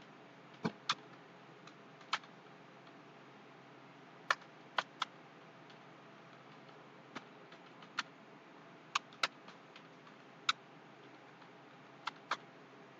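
Computer keyboard keys being pressed slowly and unevenly, about a dozen single clicks with gaps of up to two seconds, some coming in quick pairs, over a faint steady hiss.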